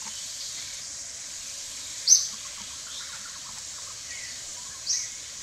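Steady high insect hum of outdoor forest ambience, with a bird giving a short, sharp, high chirp twice, about two seconds in and again near the end.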